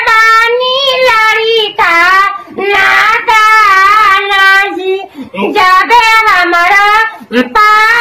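A man singing a folk wedding song solo in a high falsetto that imitates a woman's voice, with a hand cupped at his mouth. He sings in long wavering phrases, with short breaths about two and a half and five seconds in.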